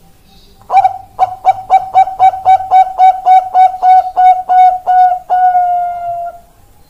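Zebra dove (Bangkok-strain perkutut) singing: a fast, even run of short cooing notes, about four a second, ending in one longer held note.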